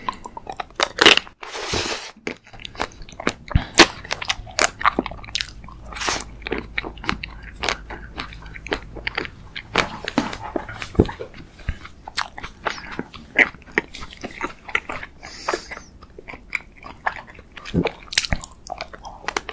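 A person biting and chewing a pink dessert, with an irregular run of sharp crunches.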